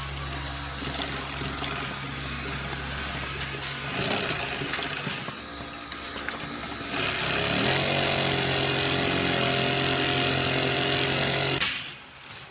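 Heavy-duty industrial sewing machine running, stitching a webbing strap and D-ring onto the corner of a shade sail. It gets much louder about seven seconds in and stops abruptly near the end.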